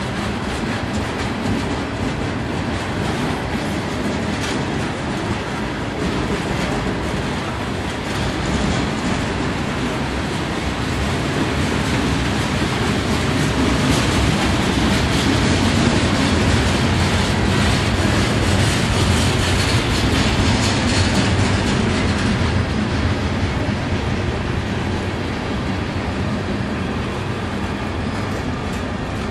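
Freight train cars, open hoppers and covered hoppers, rolling past on steel wheels: a steady rumble and clatter of wheels on the rails that grows a little louder in the middle.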